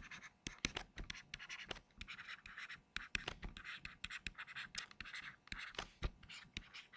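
Stylus writing on a tablet: a faint, quick run of short scratches and ticks as words are handwritten stroke by stroke.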